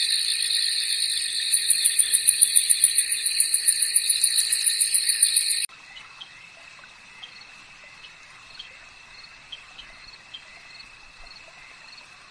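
Night-time chorus of insects and frogs: a loud, shrill, many-layered trilling with a fast pulsing high note. About halfway through it cuts off suddenly to a much quieter steady trill with regular chirps about twice a second.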